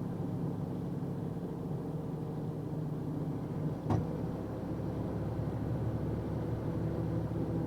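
Steady engine and road drone of a box truck heard inside the cab, with a single sharp knock about four seconds in.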